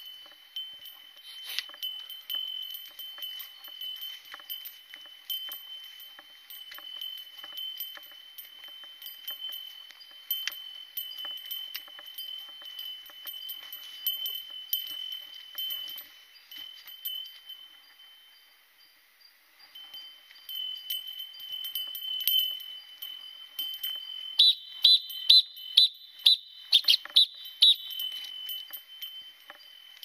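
A bear bell jingling steadily as the hiker walks, a sustained bright ringing with many small strikes, carried to warn bears off. It nearly dies away for a moment past the middle, then rings louder, with sharp strikes, near the end.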